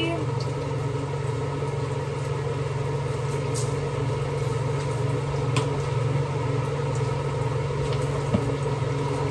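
A steady low mechanical hum, with a few faint light taps.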